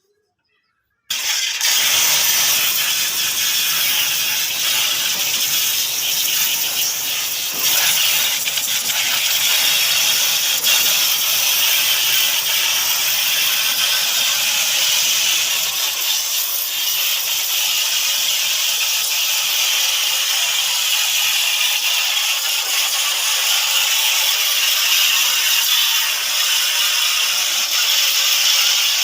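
High-pressure washer switching on about a second in and spraying a steady, hissing jet of water onto a washing machine drum to clean it.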